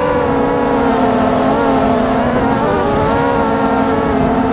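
FPV racing quadcopter's brushless motors and propellers whining steadily, recorded close up from the quad itself, the pitch wavering slightly as the throttle changes.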